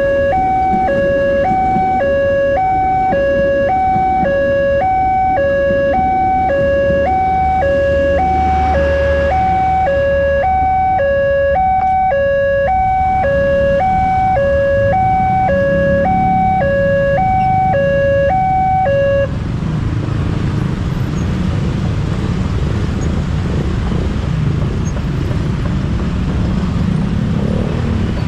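Railway level-crossing warning alarm playing a recorded two-tone siren, switching between a high and a low tone about twice a second, over steady road-traffic rumble. The alarm cuts off about 19 seconds in, signalling the crossing is clearing, and the traffic noise carries on.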